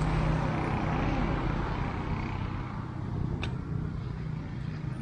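An engine running with a steady low hum, its noise slowly fading, and a single sharp click about three and a half seconds in.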